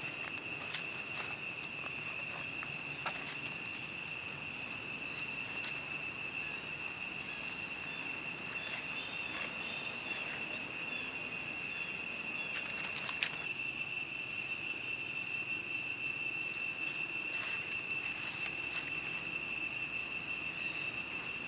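Continuous insect chorus: a steady high-pitched trill, with scattered light clicks over it.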